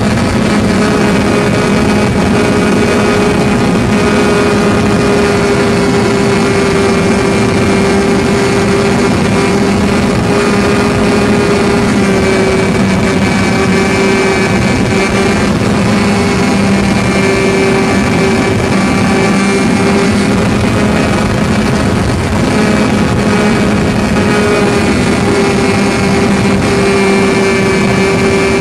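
O.S. .61 SF two-stroke glow engine of an RC plane, heard close up from the camera mounted on the plane, running steadily at high power in flight. Its pitch wavers slightly now and then as the plane manoeuvres, over a constant rush of air.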